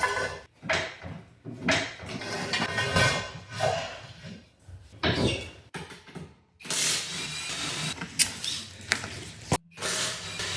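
Tools and car parts being handled: a string of sharp clanks and knocks, with a steadier hissing noise in the second half and abrupt cuts between quick clips.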